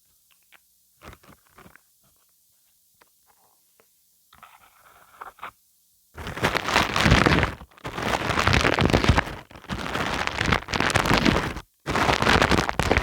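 A dried layer of all-purpose glue being peeled off a wide surface. Faint scattered ticks come first, then from about six seconds in loud crackling, tearing peels in several long pulls with brief breaks.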